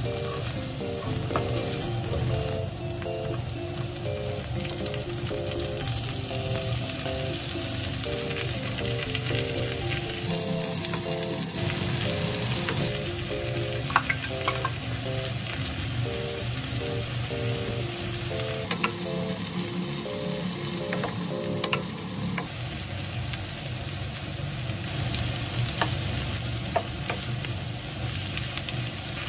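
Pork and vegetables sizzling in an oiled frying pan as they are stirred with a wooden spatula, with a few sharp taps of the spatula on the pan. Soft background music runs underneath.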